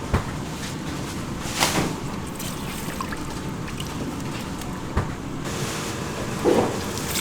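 Steady watery kitchen noise, like liquid bubbling or running, with a few sharp knocks and clatters.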